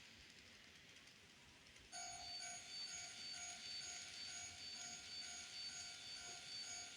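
Japanese level-crossing warning bell (the electronic 'kan-kan' crossing chime) ringing at about two strikes a second; it is silent at first and starts up again about two seconds in.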